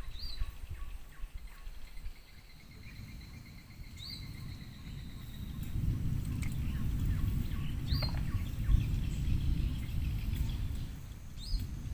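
Birds calling: a sharp whistled note that rises quickly and then holds, repeated about every four seconds, over a fainter trill and a long steady whistle. From about six seconds in, a low rumble grows louder beneath the calls.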